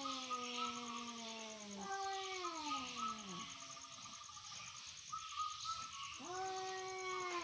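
Angry tomcats yowling at each other in a standoff: long, drawn-out howls that slide down in pitch, one running straight into the next, then a pause of a few seconds before another howl starts near the end. It is the threat call of male cats squaring off over territory.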